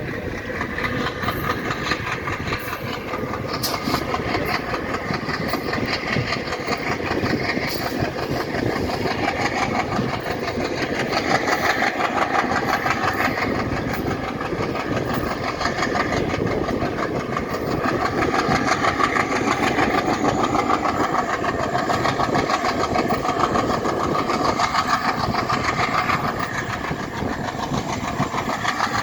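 Diesel locomotive engine running hard with a steady, rhythmic throb as the train passes.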